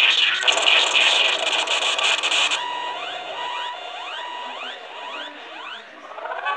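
Cartoon sound effects played through computer speakers: about two and a half seconds of harsh, crackling noise that stops suddenly, then a run of short rising electronic chirps over steady tones.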